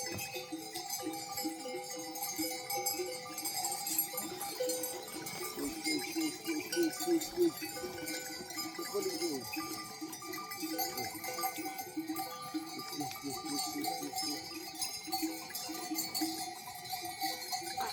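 Flock of sheep moving together, many bells on the animals clanking and ringing continuously, with sheep bleating again and again.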